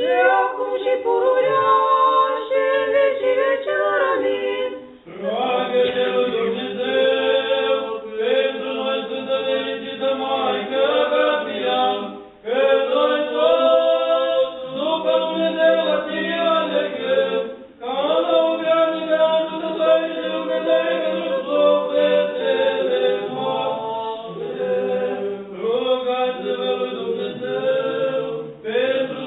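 Unaccompanied Orthodox liturgical chant: several voices singing together in phrases of a few seconds, each ending in a brief pause.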